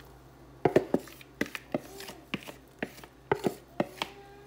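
About a dozen irregular, sharp knocks and clicks of kitchen utensils, a few of them leaving a brief metallic ring.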